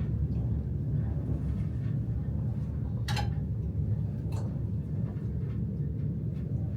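Steady low rumble of a moving passenger train heard from inside the carriage, with two brief clicks about three and four and a half seconds in.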